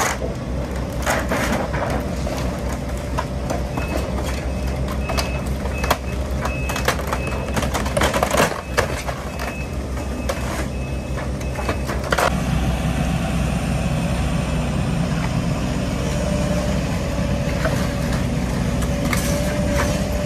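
Case excavator's diesel engine running as its bucket tears into a mobile home, with cracking and crashing of wood and siding breaking apart through the first half. A warning alarm beeps about twice a second from about 4 to 11 seconds in. After a cut near 12 seconds the engine runs steadily with a held hydraulic whine.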